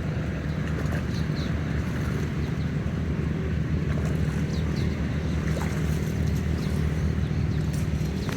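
A motor running steadily: a low, even hum with wind noise over it. A few faint, short high chirps sound above it.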